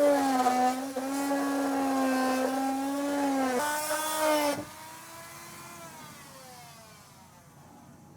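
A handheld electric power tool running hard, its motor pitch dipping and stepping as it cuts. About four and a half seconds in it is released and the motor winds down, falling in pitch as it fades.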